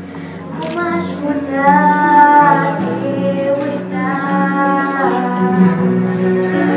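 A girl singing a song into a microphone over an instrumental backing, holding some notes for about a second.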